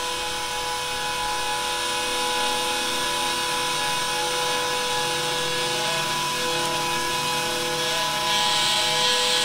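Edited found-sound recording, EQ'd and speed-changed: a steady hum with two held tones over a rough, even noise, a lower tone joining about five seconds in.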